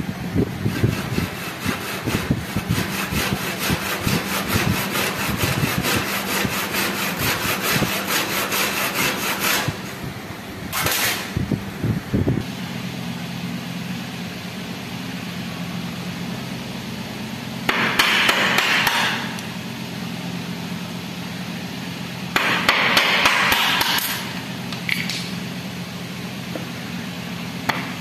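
Hand tools working a wooden frame joint. A fast, even run of strokes lasts about ten seconds, then after a lull come three separate bursts of cutting or scraping on the wood, the last one near the end.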